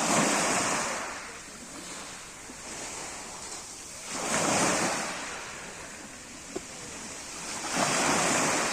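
Black Sea waves breaking on the shore three times, about four seconds apart, each break swelling up and washing back down between them.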